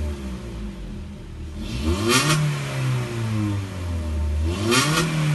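Honda Brio four-cylinder petrol engine blipped twice, about 2 seconds in and again near the end; each time the revs climb quickly to a short sharp peak and then fall away slowly. It is a free-revving test after an ECU remap.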